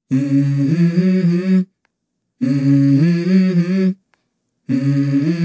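A low voice humming a short stepped melody three times, each phrase about a second and a half long with silent breaks between: the unaccompanied opening of the backing song.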